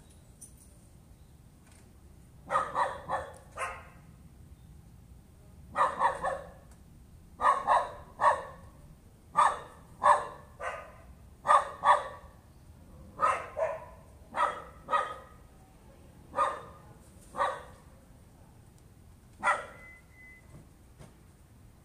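A dog barking over and over, in single barks and quick runs of two or three, starting a couple of seconds in and stopping near the end: persistent nuisance barking.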